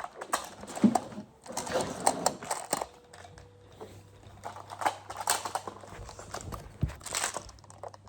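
Plastic magnetic building tiles clicking and clattering in irregular bursts as they are handled and snapped together.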